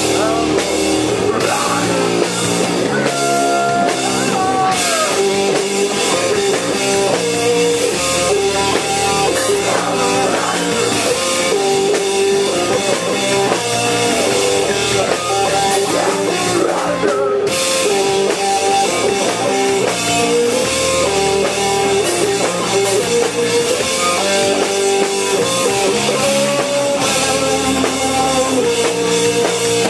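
Live stoner-doom rock band playing loud: heavily distorted electric guitar, bass and drum kit, without a break.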